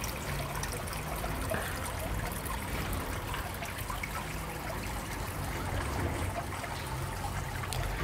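Water trickling steadily down a small homemade tiered waterfall into a garden pond.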